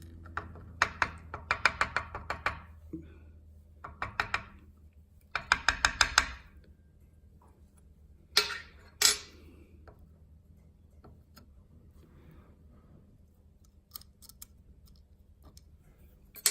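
Small lock pins and springs clicking and tapping as they are shaken and picked out of a Schlage lock cylinder while it is gutted: two quick runs of light clicks, then a few single taps.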